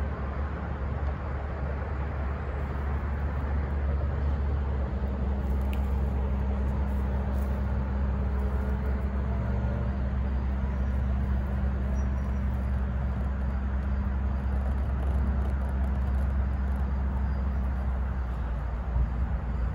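CSX freight train of covered hopper cars rolling past: a steady low rumble, with a low hum joining about five seconds in.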